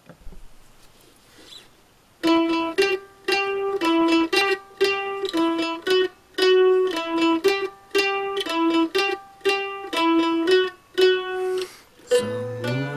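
F-style mandolin playing a picked single-note melody. The playing starts about two seconds in, after a knock and some handling noise. Near the end it moves into lower, fuller notes played together.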